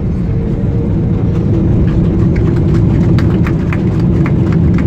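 Jet airliner cabin noise while rolling out after landing: steady engine and rolling rumble with a faint held tone. From about a second in, a run of short light clicks comes several times a second.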